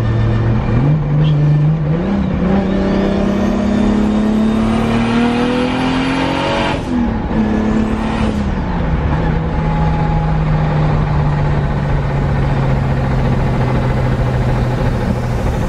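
Nissan 240SX engine under acceleration on a drive: revs step up twice early, climb steadily, then drop sharply about seven seconds in and settle to a steady run.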